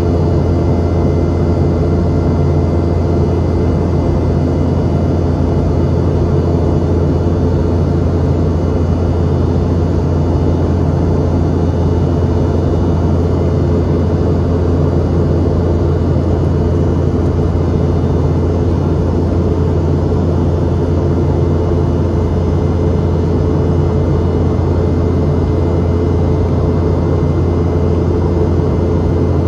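Steady cabin noise of a Boeing 717-200 in flight, heard from a seat right beside its rear-mounted Rolls-Royce BR715 turbofan engine. A strong low hum with a few steady whining tones sits over a constant rush of engine and airflow noise.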